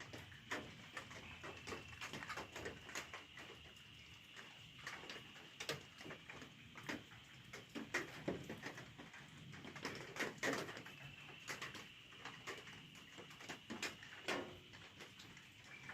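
A faint night-time animal chorus after rain: many short, irregular calls and clicks, with a steady high thin trill that drops out in the middle and comes back near the end.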